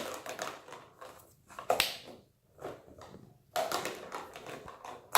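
RagaMuffin kittens playing, with irregular scuffles, taps and knocks, the loudest about two seconds in and again around four seconds in.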